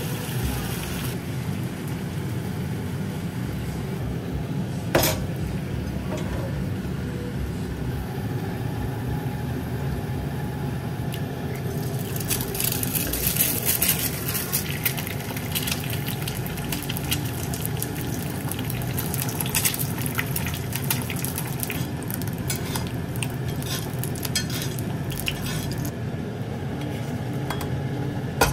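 Cooking at a stove: metal utensils clinking against pans over a steady low hum, with one sharp clink about five seconds in. From about twelve seconds an egg cracked into a hot cast-iron skillet crackles and sizzles in the oil.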